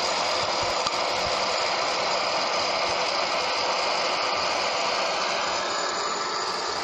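Hot-air popcorn popper's blower fan running with a steady hiss, like a hair dryer.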